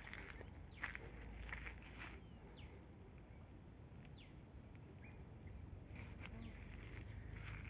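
Slow, uneven footsteps on dry earth, clearest in the first two seconds, with a few short high bird calls that slide downward.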